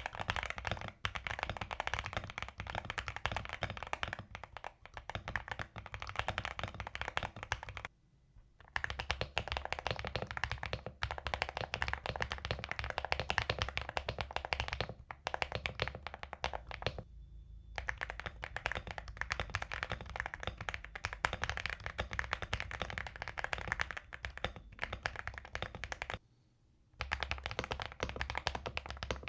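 Fast typing on Gravastar mechanical keyboards: dense runs of sharp key clacks, broken by three short pauses.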